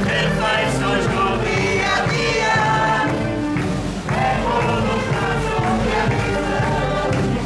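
Marcha popular sung in chorus by a group of marchers over band accompaniment.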